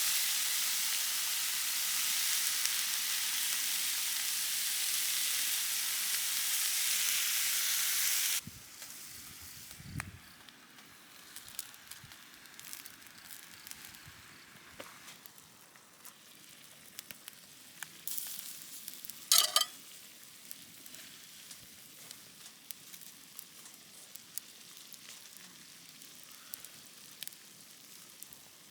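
Food sizzling loudly in a hot pan at camp, cutting off abruptly about eight seconds in; after that a much quieter sizzle with scattered crackles and one short, loud burst a little past the middle.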